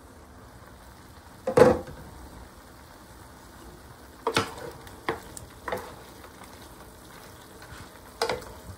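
Cubed lamb simmering in water in an electric skillet, a steady bubbling sizzle, with five clunks of the lid and a wooden spoon against the pan as the meat is stirred, the loudest about a second and a half in.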